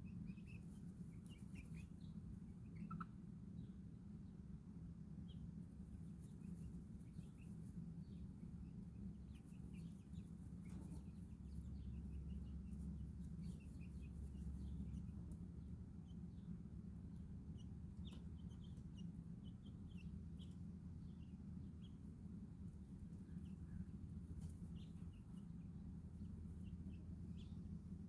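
Chickens and chicks in a coop making faint, scattered short peeps and calls, over a steady low hum.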